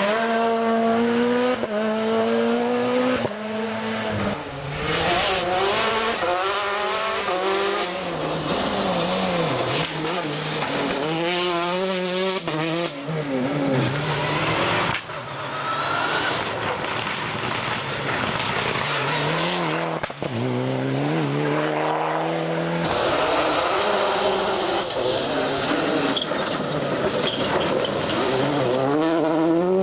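Rally cars racing flat out on a gravel special stage: engines revving high and dropping through quick gear changes over the noise of tyres on gravel, with several passes one after another.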